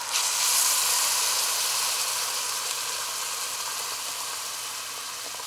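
Water poured from a pitcher into a hot pot of browned chicken and onions, hissing and sizzling as it hits the hot pan. The sound comes in suddenly at the start and slowly dies down as the pot fills.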